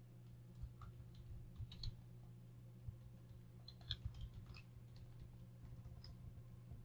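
Faint tapping of computer keyboard keys in short irregular runs as a line of text is typed, over a steady low hum.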